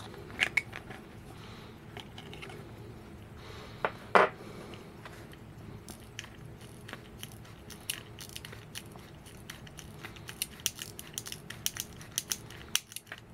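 Silver pocket watch of about 1890 with a Crettiez movement being handled: a single sharp snap about four seconds in as the hinged case is opened, then a quick run of small ratchet clicks from the keyless winding near the end as the crown is wound.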